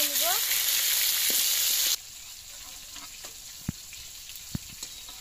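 Boal fish pieces frying in hot oil in an iron kadai: a loud, steady sizzle that drops abruptly about two seconds in to a quieter sizzle. A few sharp clinks of the metal spatula against the pan come in the second half.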